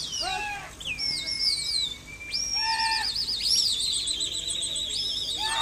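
Pigeon keepers whistling to a circling flock of pigeons: shrill swooping whistles and long held notes, then a steady warbling trilled whistle from about three and a half seconds in.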